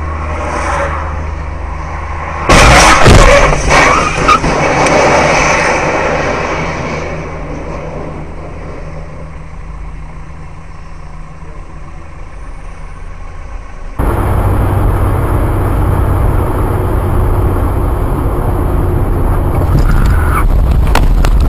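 Car and road noise, then about two and a half seconds in a loud vehicle collision: several hard hits over a second or so, fading out afterwards. Later the noise jumps suddenly to a louder, steady road noise.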